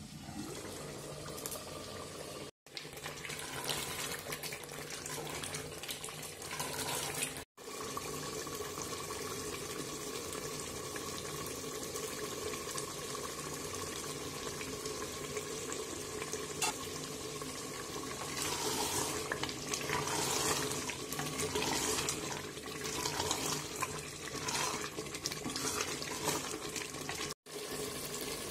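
Water running steadily, as from a kitchen tap, broken by three brief drops to silence.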